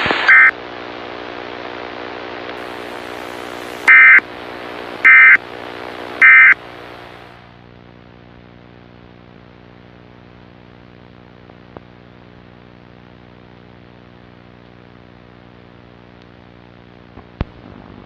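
Emergency Alert System end-of-message data tones: after a brief blip right at the start, three short, harsh buzzing data bursts sound about a second apart, marking the end of the alert. A steady electronic drone runs underneath and drops to a fainter hum after the third burst.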